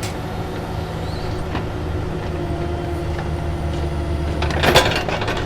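Diesel engine of a Cat 305 mini excavator running steadily, with a short burst of clattering about four and a half seconds in.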